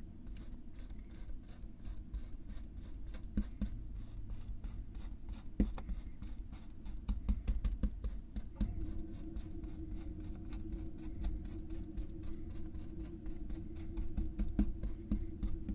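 Kinetic sand crunching and crackling in many quick, dense crackles as a steel cylinder presses and cuts down through it, with a few louder crunches. A low steady hum runs underneath.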